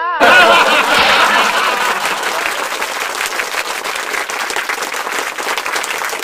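Audience applause, starting suddenly and loudest in the first second or two, then settling into steady dense clapping.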